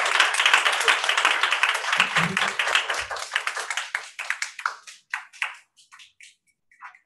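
Audience applauding a string ensemble piece just ended: thick, fast clapping that thins out about four seconds in and breaks up into a few scattered claps.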